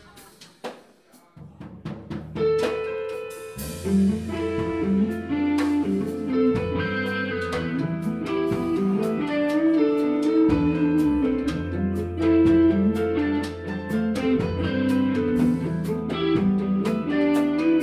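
Instrumental intro of a song played by a band: a few light drum taps, then bass and guitar come in one after another within the first few seconds, building to a full band with drums before the singing starts.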